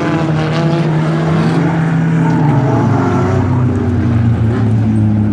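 Several four-cylinder dirt-track stock car engines running together, their pitches steady. One engine drops in pitch about two and a half seconds in, as the field slows under a caution flag.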